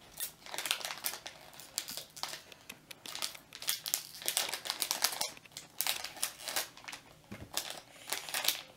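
Scissors cutting through a crinkly plastic blind bag, with the packaging crackling and rustling in quick, irregular bits. Near the end the bag is handled and pulled open by hand.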